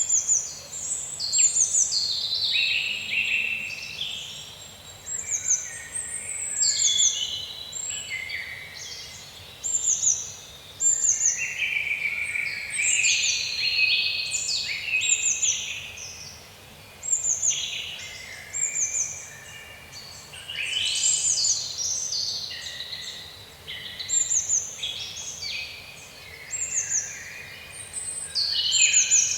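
Small songbirds chirping and singing, several calls overlapping, with many short, high, down-sliding chirps repeated every second or so.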